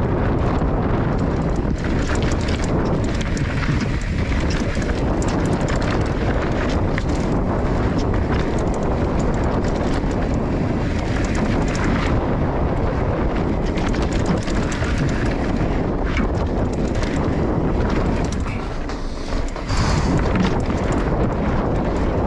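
Mountain bike riding fast down a dry dirt trail: wind buffeting the microphone over tyre noise on loose dirt and gravel, with steady rattling and knocking from the bike over bumps. The noise eases briefly about three-quarters of the way through, then picks up again.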